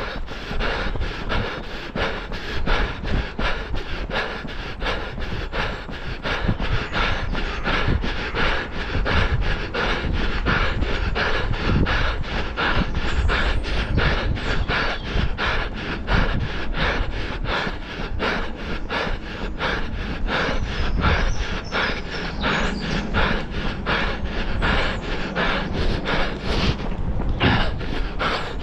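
A runner's footfalls at a steady running pace, about three strides a second, with heavy panting breath.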